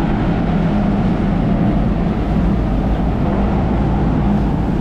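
Harbour ferry's engines running with a steady deep rumble as it comes alongside the landing pontoon, with its propeller wash churning the water.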